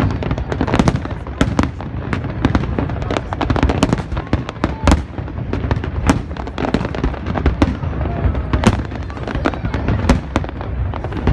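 Aerial fireworks display: many sharp bangs and pops in an irregular run, over a continuous low rumble.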